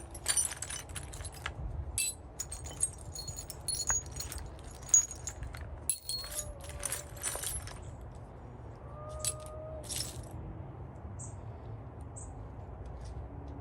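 Steel drill chuck keys clinking and jangling against each other as a handful is picked through and sorted, the clinks thinning out in the last few seconds.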